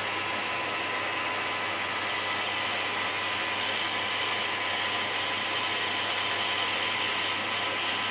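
Workshop lathe running steadily, an even mechanical noise with a thin steady whine.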